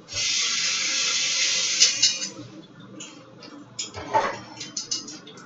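Water running from a tap in a steady hiss for about two seconds, then shut off, followed by a few light clicks and knocks.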